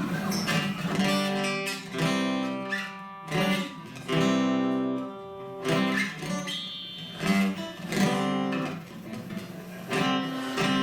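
Acoustic guitar strummed in chords, a noodling run of chords between songs.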